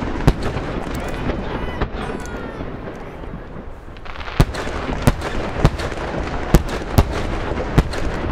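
Fireworks shells bursting in a run of sharp bangs, most of them in the second half, over the steady murmur of an outdoor crowd.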